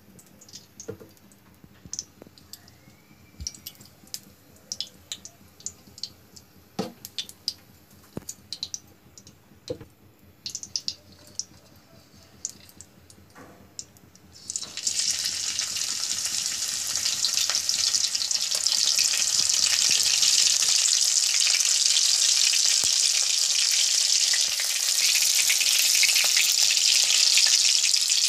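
Faint scattered clicks and taps, then about halfway through a sudden loud sizzle as chopped green chillies go into hot oil in a wok. The oil keeps frying and spitting steadily.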